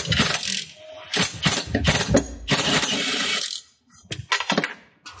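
Hand ratchet on a long socket extension clicking in quick runs as a 14 mm driveshaft centre-bearing bracket bolt is undone, with metallic clinks of the tool. A denser run of clicking comes about two and a half seconds in, then a few scattered clicks near the end.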